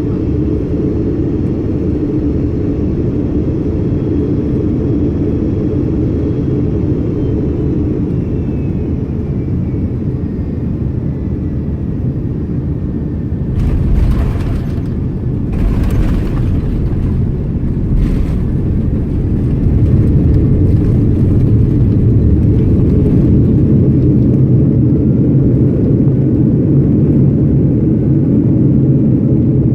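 Airbus A330 landing: steady engine drone with faint gliding whines, then three sharp thumps a little under halfway through as the wheels touch down. A louder low rumble follows as the airliner rolls out on the runway.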